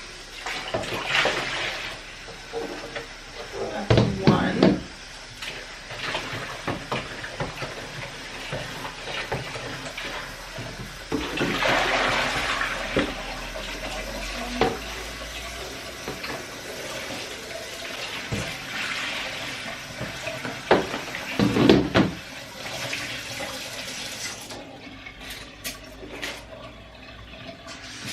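Tap water running into a sink while plastic storage bins are washed, with a few knocks and thuds as the bins are handled, the loudest about four seconds in and again past the twenty-second mark.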